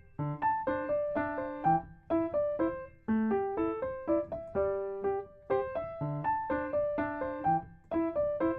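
Background music: a solo piano playing a light, repeating melody of short notes.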